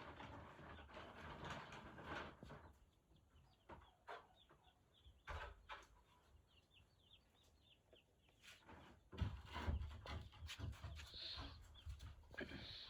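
Day-old broiler chicks peeping faintly in many short, high cheeps, with scattered knocks among them.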